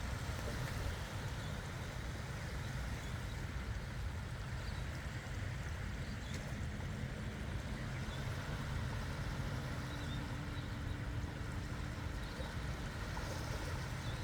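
Steady outdoor rumble of wind and water. A faint, steady low hum joins about two-thirds of the way in.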